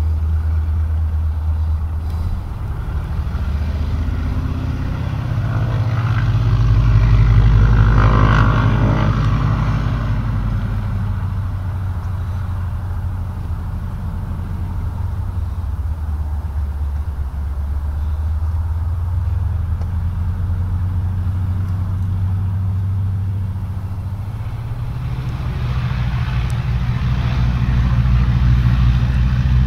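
Nanchang CJ-6's nine-cylinder radial engine running steadily as the plane taxis, growing louder as it comes closest about eight seconds in and swelling again near the end.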